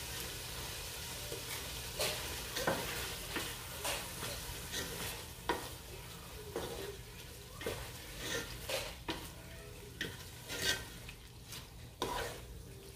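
Spice paste (masala) and tomatoes sizzling in hot oil in a cooking pot while being stirred, with irregular scraping strokes of the spoon against the pot over a steady frying hiss.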